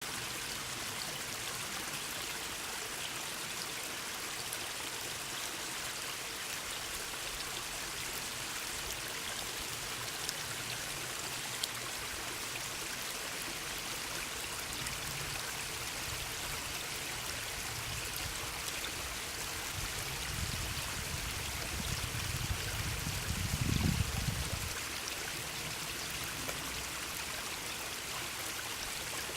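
Stream water running steadily. A low rumble swells about twenty seconds in and dies away a few seconds later.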